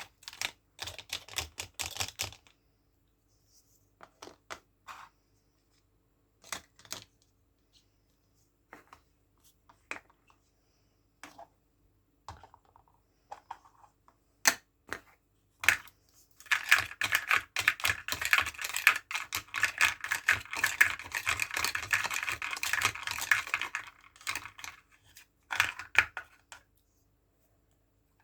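Small plastic toy kitchen pieces clicking and tapping as they are handled, in scattered sharp taps. In the second half comes a dense run of rapid crackling and rustling that lasts about seven seconds.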